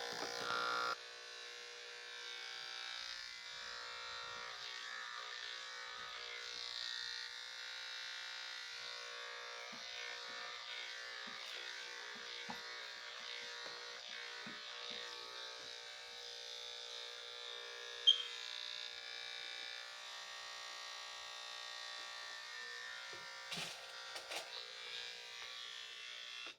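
Electric dog grooming clippers running steadily, working through a dog's matted coat, with one sharp click about eighteen seconds in.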